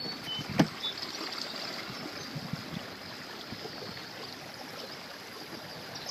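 Small boat under way on a lake: a steady rush of water and wind noise, with a single knock about half a second in.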